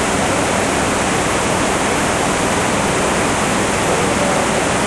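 Rushing floodwater of a swollen, churning river: a steady, loud, even rush with no break.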